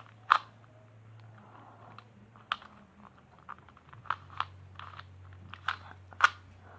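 Plastic Rubik's cube layers being twisted by hand: a run of irregular clicks and clacks, loudest just after the start and again near the end, busiest in the last couple of seconds.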